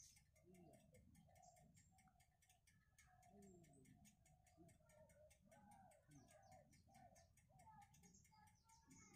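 Near silence, with a faint, rapid, even ticking and faint wavering sounds in the background.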